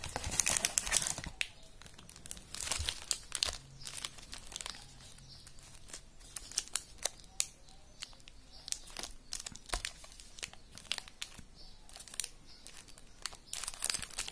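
Crinkly plastic wrappers of small chocolate bars rustling and crackling as they are handled and pulled from a cardboard box, in irregular bursts of crackles, densest at the start.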